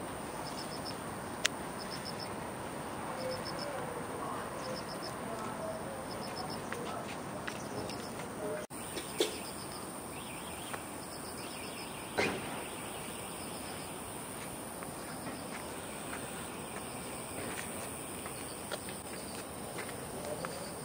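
Outdoor background with an insect chirping in short, high, regular pulse groups about once a second. A few sharp clicks stand out, the loudest about a second and a half in and again around twelve seconds.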